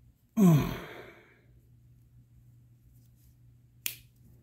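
A man's sigh, falling in pitch, about half a second in. Near the end comes a single sharp click, a blade of a pocketknife with heavy springs snapping on its backspring.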